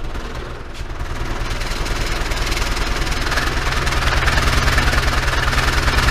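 An 18-inch Dayton Audio subwoofer driver in free air playing a test tone of about 20 Hz, growing louder as it is turned up. Things on the bench rattle and buzz with the vibration, and the buzz gets stronger about three and a half seconds in.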